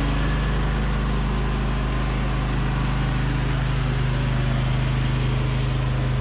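Gravely zero-turn riding mower's petrol engine running steadily.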